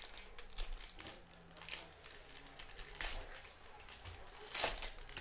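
Trading cards and foil pack wrappers being handled: soft rustles and a few short swishes of cards sliding, the loudest about four and a half seconds in.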